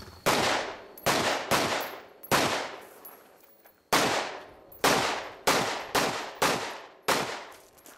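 Rifle fire on a shooting stage: ten shots at an uneven pace, each with an echoing tail, with a pause of about a second and a half near the middle.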